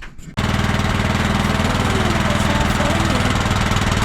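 Small engine running steadily at a constant speed, with an even low pulsing. It cuts in abruptly about half a second in.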